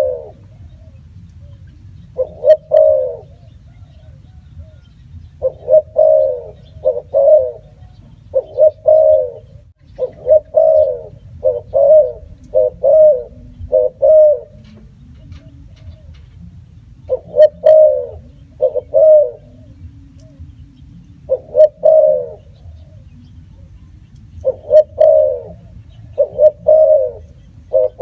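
Spotted dove cooing: repeated phrases of two to four low, slightly falling coo notes, with a pause of a second or two between phrases.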